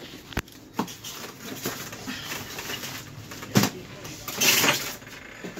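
Cardboard and styrofoam packing being handled and pulled out of a box: scattered knocks, a sharp knock about three and a half seconds in, and a longer scraping rustle of foam against cardboard about a second later.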